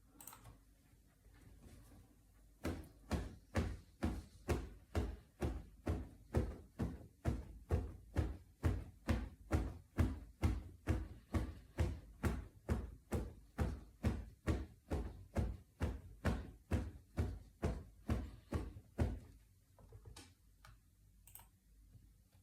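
Foley wing flaps made to imitate a flying bird: a steady run of soft whooshing flaps with a low thump each, a little over two a second, starting a few seconds in and stopping a few seconds before the end.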